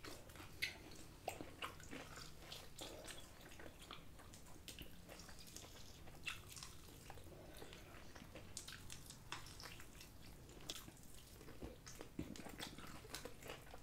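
Two people chewing and biting fried chicken wings close to the microphone: quiet wet mouth sounds with many small sharp crunches and clicks scattered throughout.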